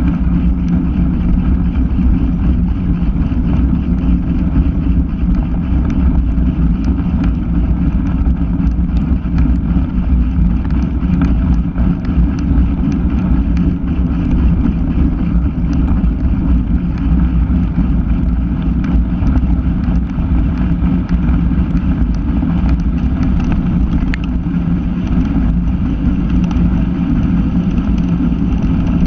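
Steady wind buffeting on the microphone of a bike-mounted camera moving fast, over tyre rumble on a dirt and leaf-covered track, with scattered small clicks from the ground.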